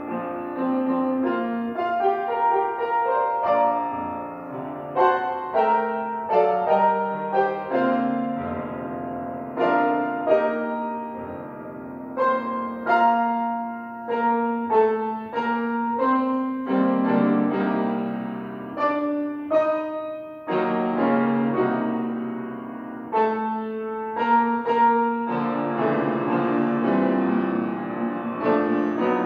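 Solo piano playing a slow instrumental piece: melody notes over sustained chords, each note struck and left to ring, with no voice.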